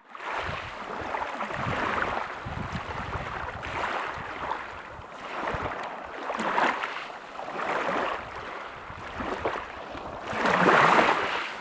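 Small sea waves washing onto the shore, the surf hiss swelling and fading every couple of seconds, with the loudest wash near the end.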